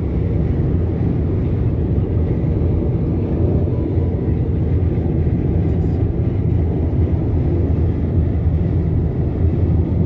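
Steady low road rumble of a car at motorway speed, heard from inside the cabin.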